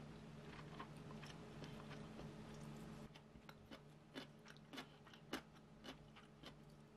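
Quiet eating sounds: scattered faint clicks and taps of chopsticks picking up tofu and noodles from a bowl of stew, more frequent in the second half. A steady low hum runs underneath.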